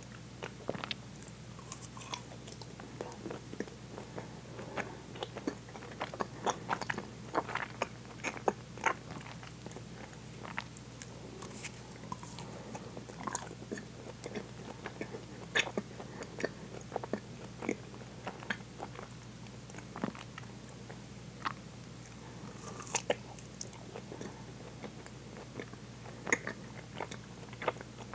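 Close-miked biting and chewing of a chocolate-coated vanilla ice cream bar: the frozen chocolate shell crunching in short, irregular clicks between softer mouth sounds, over a faint steady low hum.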